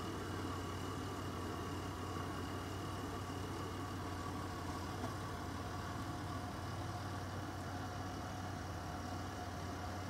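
Steady low mechanical hum, like an engine idling, with a few faint steady higher tones above it; it does not change.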